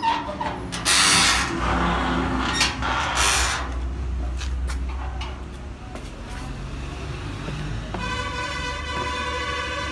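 Sliding bolt latch on a metal gate drawn back with a sharp click, then two loud rasping bursts of metal gate noise as the gate is opened, over a low rumble. About eight seconds in, a steady pitched sound with many overtones comes in.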